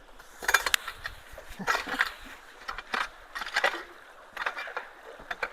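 Footsteps crunching on loose ground, about one step a second.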